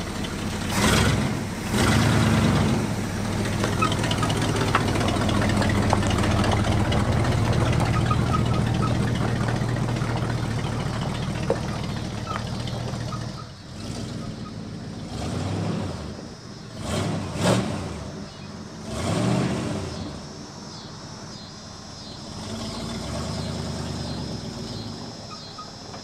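1979 Ford F-150's 460 V8 backfiring a couple of times and then running hard with its throttle stuck as the truck takes off. About halfway through the revs drop, surge a few times and settle to a lower idle. The crew puts the backfiring down to a lean mixture from a carburettor with no accelerator pump.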